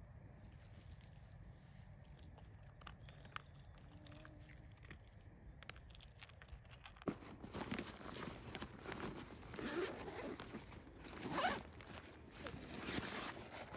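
Zippers on a fabric backpack pulled open in a series of quick strokes, with the pack's fabric rustling, starting about halfway through and strongest near the end. Before that, only a few faint small clicks.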